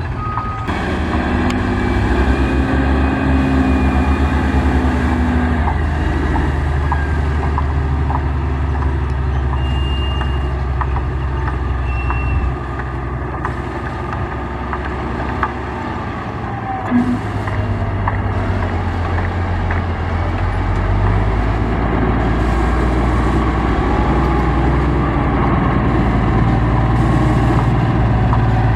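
Heavy construction machinery engines running steadily, the engine note dropping about halfway through and rising again later.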